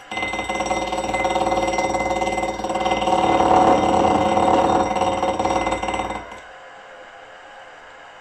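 A milling machine's gear cutter cutting a tooth in a model traction engine's final-drive gear ring. It runs with a ringing, chattering tone that grows louder midway through the cut, then stops abruptly about six seconds in.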